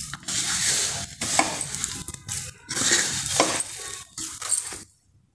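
Hand kneading a wet pumpkin-and-flour dough in a stainless steel plate: irregular rubbing and squishing of dough and fingers against the metal. It cuts off abruptly near the end.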